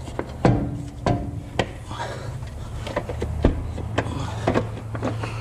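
A Chevy Silverado transfer case being shoved and shifted by hand up against the transmission's tail housing: a series of sharp, irregular metal knocks and scrapes over a steady low hum.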